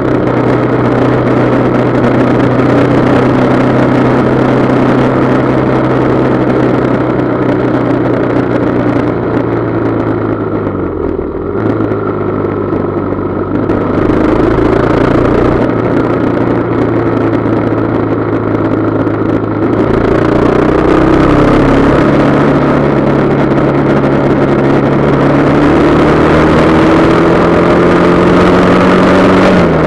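Motorcycle engine heard on board while riding, over a rush of wind noise. It runs at a steady cruise, dips about a third of the way through, then climbs steadily as the bike accelerates through the last third. The pitch falls suddenly at the very end.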